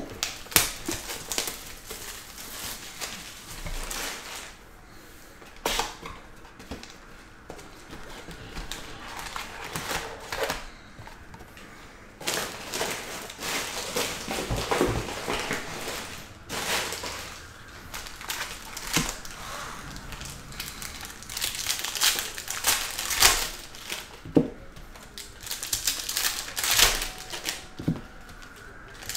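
Plastic shrink wrap and foil trading-card packs crinkling and tearing as a box of football cards is unwrapped and its packs ripped open, in irregular rustles broken by sharp clicks and snaps.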